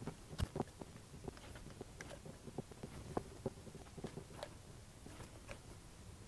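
Faint, irregular small clicks and taps of a hand screwdriver driving the baffle screws into the deep oil sump's anti-slosh tray, metal on metal, thinning out after about four seconds.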